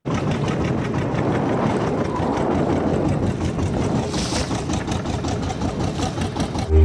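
Small wooden fishing boat's engine running over the sound of the sea: waves slapping against the hull, with a burst of spray hissing about four seconds in.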